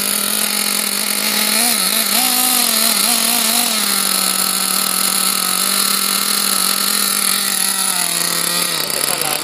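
Small nitro glow engine of a Losi 2.0 RC buggy idling steadily, with a few light throttle blips about two seconds in. The pitch dips slightly near the end.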